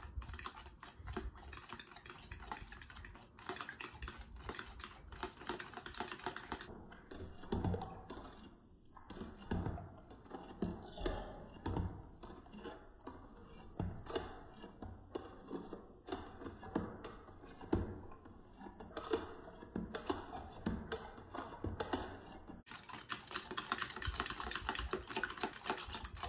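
Metal fork beating eggs and milk in a plastic container: a rapid, uneven run of light clicks and taps of the fork against the container's sides and bottom.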